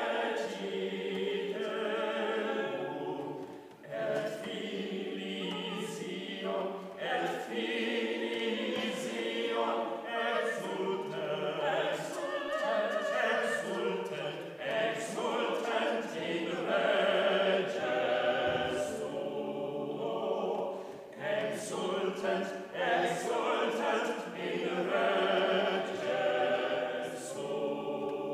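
Church choir singing, several voices in harmony with a wavering vibrato and sung words, continuously.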